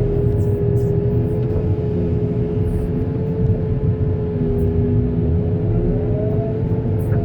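Heavy-equipment diesel engine running steadily, a deep rumble with a steady whine above it.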